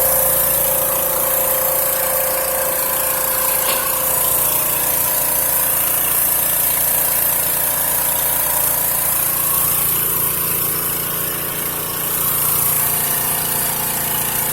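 Drain-cleaning hydro jetter running steadily: a motor-driven high-pressure water pump with a constant hiss. The sound eases briefly about twelve seconds in.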